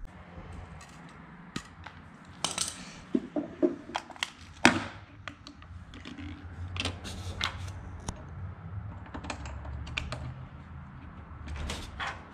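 Scattered light metallic clicks and clinks from handling a small spool of copper-coated MIG wire and feeding its end into the welder's drive roll and tension arm. The loudest click comes a little under five seconds in, over a faint low hum.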